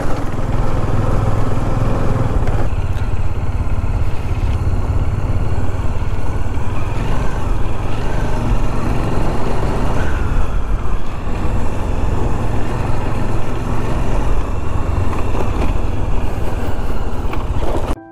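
Motorcycle running steadily while being ridden, a loud, continuous rumble with a heavy low end.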